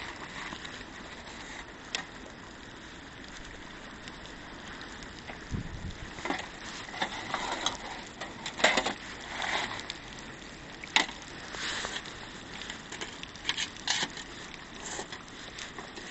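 Campfire crackling in the rain, with irregular sharp pops and snaps over a steady hiss.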